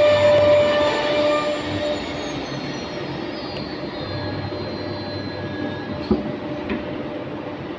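Multi-head CNC wood router with its dust collector running, first with a steady high spindle whine while cutting MDF. About two seconds in the whine falls in pitch as the spindle winds down, leaving a steady machine hum, with a short knock near the end.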